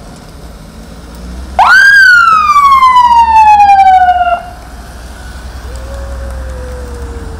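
An escort vehicle's siren gives one loud sweep: it shoots up in pitch about a second and a half in, then slides slowly down for nearly three seconds before cutting off abruptly. A fainter, lower falling siren tone follows near the end, over a low steady rumble of vehicles.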